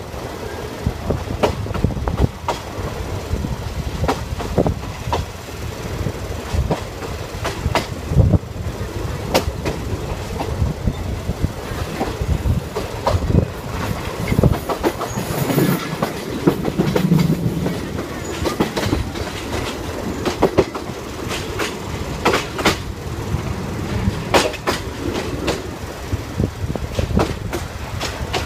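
State Railway of Thailand ordinary train running, heard from inside the carriage: a steady low rumble with wheels clicking over the rail joints and the carriage rattling.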